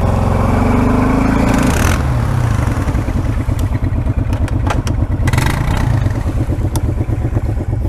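ATV engine revving up over about two seconds, then running at low, steady revs, with a few sharp knocks and rattles in the middle.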